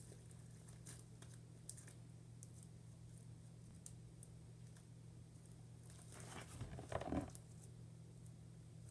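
Homemade slime being handled and kneaded by hand: faint sticky crackles and clicks, with a louder squishing, tearing stretch about six to seven seconds in, over a steady low electrical hum.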